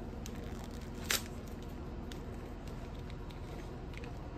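Clear plastic snack wrapper crinkling as it is pulled open by hand, with one sharp crackle about a second in and a few faint ticks after.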